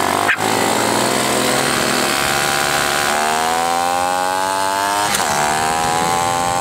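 Mini bike's small engine running under way. Its pitch climbs as the bike speeds up from about three seconds in, drops briefly about five seconds in, then climbs again.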